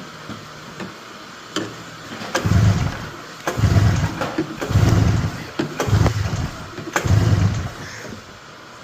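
A Polaris Ultra snowmobile's two-stroke engine is cranked over five times in short pulls, each a brief churning burst about a second apart, without starting. This is a compression test.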